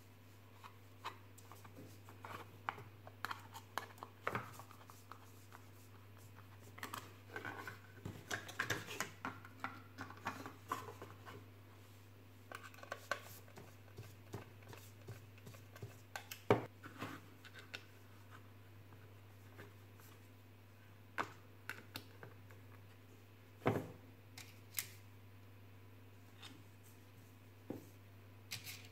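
A hand screwdriver driving small wood screws into a 3D-printed ABS plastic support: scattered clicks, scratches and small knocks of the screws and parts being handled, the loudest knocks about 16 and 24 seconds in. A low steady hum lies underneath.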